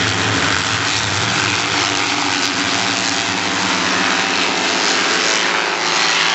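Crosscar racing engines running hard as the small off-road buggies race on a dirt track, more than one engine heard at once.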